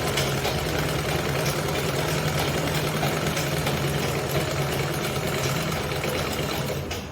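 Electric sewing machine running steadily with a motor hum, stopping suddenly about seven seconds in.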